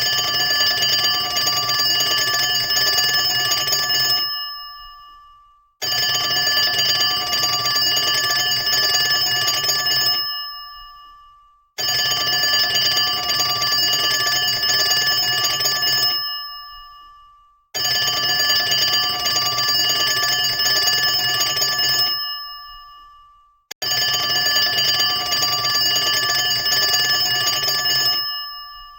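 Old-school telephone bell ringing, the cartoon kind: five long rings of about four seconds each, each fading out before the next starts about six seconds later.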